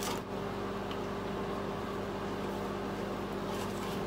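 Steady low electrical hum from a running household appliance, over faint room noise.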